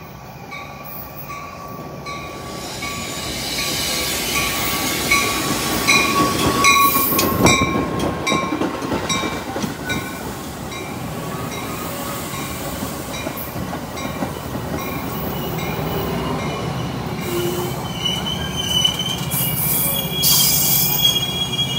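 Metra bilevel commuter train pulling into the station, rising in loudness as it comes alongside, with regular ticking of the wheels early on and a loud knock about seven seconds in. Wheels squeal high and thin as it brakes in the last few seconds, with a short hiss near the end.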